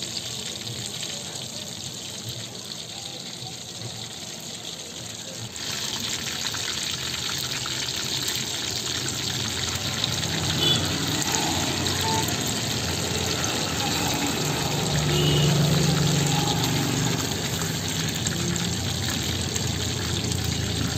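Hot oil in a kadai deep-frying battered chicken lollipops: a steady bubbling sizzle that gets louder about five seconds in.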